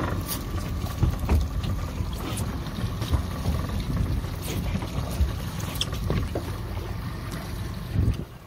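Steady low rumble of a fishing boat's engine and water against the hull, with wind on the microphone and a few light knocks. The rumble swells briefly near the end.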